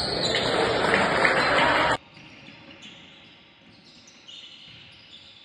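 Indoor basketball game sound: loud, dense noise from players and spectators in the hall. It cuts off abruptly about two seconds in, leaving much quieter hall sound with faint ball bounces and thuds.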